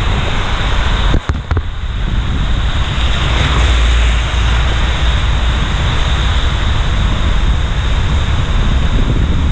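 Steady loud rushing of wind buffeting the action camera's microphone, mixed with rain and wet-road spray, as a bicycle rides through a downpour. A couple of brief knocks sound a little over a second in.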